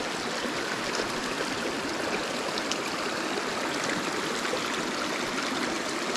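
Tiny, shallow mountain creek running over rocks in a small riffle close by: a steady, even rush of water.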